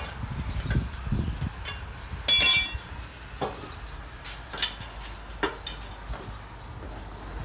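Metal parts and tools clanking at a shop press as a motorcycle crankshaft and connecting rod are set up for pressing: one loud ringing metallic clang a little over two seconds in, then several shorter, sharper metal knocks.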